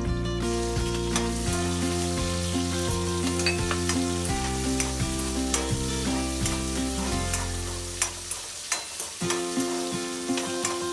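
Garlic and chopped green vegetables sizzling in hot oil in an aluminium kadai, stirred with a steel spoon that clicks and scrapes against the pan, over background music.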